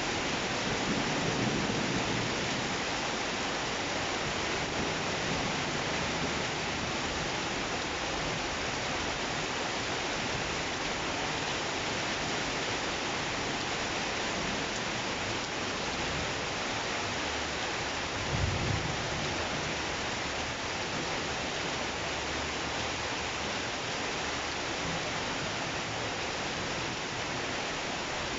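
Heavy rain falling steadily in a thunderstorm, a dense even hiss throughout. A brief low thump about two-thirds of the way through.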